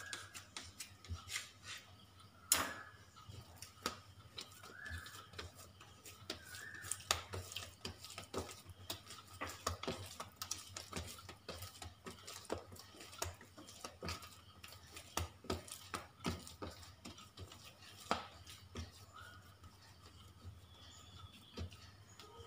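Hands working an oiled porotta dough log on a stone countertop, making many soft wet taps and squelches as the dough is pressed, rolled and stretched. A sharper knock comes about two and a half seconds in.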